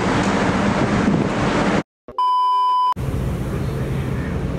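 Passenger train running past along a station platform, steady noise that cuts off abruptly a little under two seconds in. After a brief silence, a steady single-pitch censor bleep sounds for under a second, then train noise resumes as a train car rolls by.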